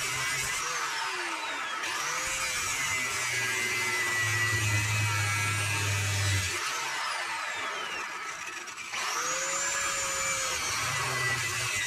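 Angle grinder grinding steel on the underside of a car, a steady high grinding hiss over the motor's hum. Its pitch sags twice, and it eases off briefly about nine seconds in before picking up again.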